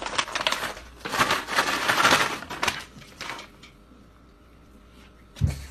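Rustling, scraping noise, loudest in the first half, then fading to a faint steady hum, with a short low thump near the end.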